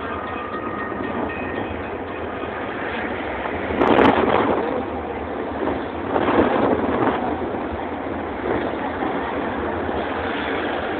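A moving train heard from a passenger car window: steady rumble of wheels on the rails, with louder surges of rail noise about four seconds in and again around six to seven seconds in.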